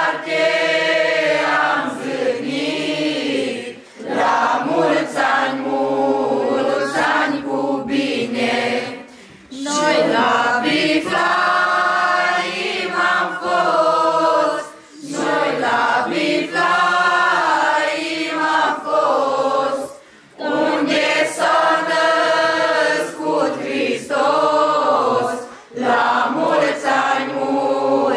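A group of young men and women singing an old Romanian Christmas carol (colindă) together without accompaniment. The phrases last about five seconds each, with a short breath between them.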